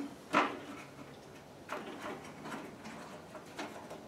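A sharp click about a third of a second in, then a few faint clicks and knocks, from a hand working the blade-height controls at the front of a WEN 3720 table saw to raise the blade.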